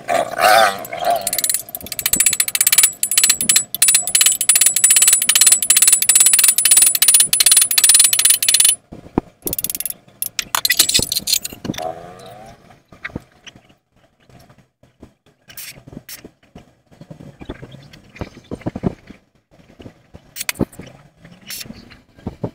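Angle grinder grinding a stainless steel tube: a loud, dense grating with a steady high whine that stops abruptly about nine seconds in. Quieter scattered clicks and taps of metalwork follow.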